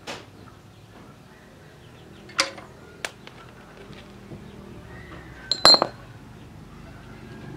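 Sharp metallic clinks and knocks of tools and parts being handled on a single-cylinder diesel tractor engine under repair. There is a clink right at the start, two more strikes about two and a half and three seconds in, and the loudest, ringing clatter about five and a half seconds in.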